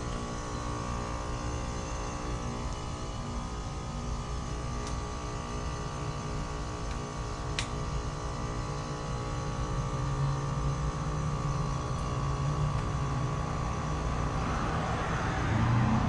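Lennox Merit 14HPX heat pump outdoor unit running just after a defrost cycle, back in heat mode: a steady hum of the compressor and top fan with several held tones. A faint click comes about halfway through, and a louder rushing noise builds near the end.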